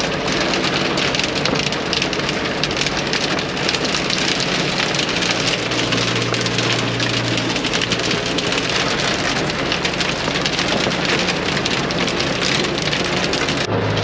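Hail and heavy rain drumming on a tractor cab's roof and windows, a dense, steady patter of hits over the tractor's engine running underneath. It breaks off abruptly near the end.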